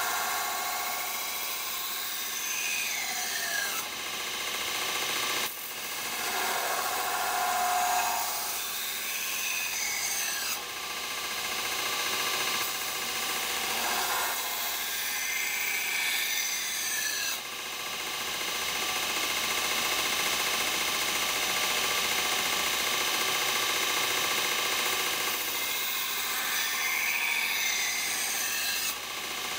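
Belt grinder with a coarse 80-grit belt grinding a steel railway-spike knife blade: a steady hissing rasp of steel on the abrasive belt, its pitch shifting as the blade is passed across. It breaks briefly a few times as the blade is lifted off the belt.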